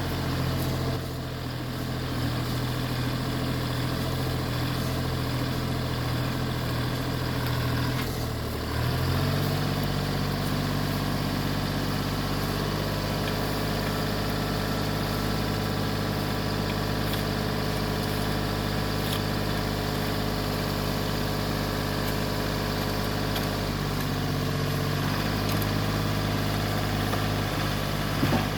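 Heavy machinery engine running steadily, its speed picking up after a brief dip about nine seconds in.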